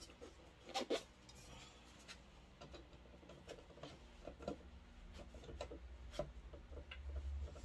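Faint rubbing and scraping of a foam sleeve being pushed onto a cup turner's metal rod, with scattered light clicks and taps of handling.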